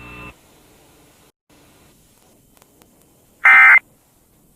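Emergency Alert System end-of-message code, sent as one short, harsh digital squawk of data tones about three seconds in. It is the first of the repeated bursts that close the Required Monthly Test.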